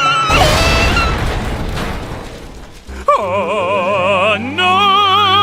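Cartoon explosion sound effect: a sudden loud blast about a quarter second in that dies away over about two seconds. Then, about three seconds in, a held warbling tone with a fast, even vibrato starts and runs on.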